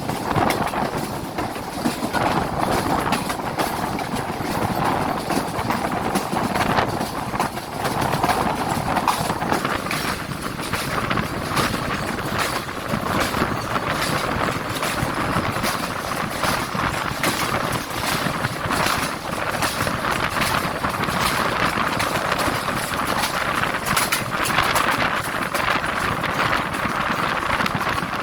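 Passenger train running along the track: a steady rumble with many short rattles and clacks.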